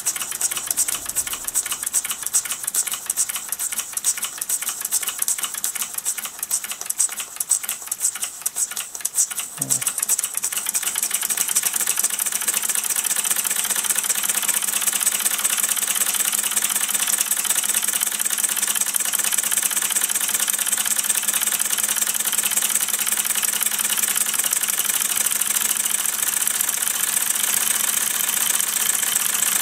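Mamod SP7 twin-cylinder gas-fired model steam engine running with a rapid mechanical ticking. About ten seconds in the sound grows louder and more even, with a strong steady hiss.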